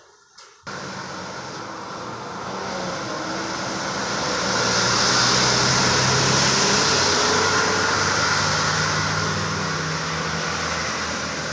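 Heavy truck passing on a rain-wet road: a steady hiss of tyres on wet tarmac over a low engine sound. It starts suddenly, builds to its loudest about halfway through, then fades.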